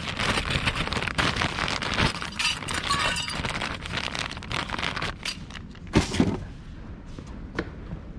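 Metal brake pads and their shims being handled, clinking and rattling against each other, with a sharp knock about six seconds in.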